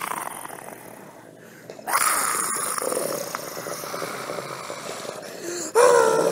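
Dog growling and snarling in rough, drawn-out rumbles, with a short pitched cry near the end.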